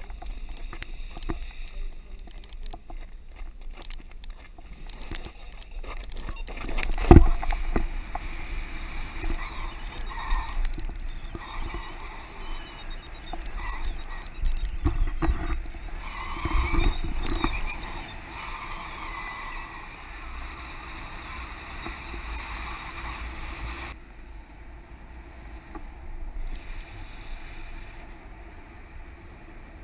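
Wind rumbling and buffeting on the microphone of a selfie-stick action camera during a tandem paraglider's launch and flight, with one loud knock on the camera about seven seconds in. The wind noise is uneven and louder for a while, then steadier and quieter near the end.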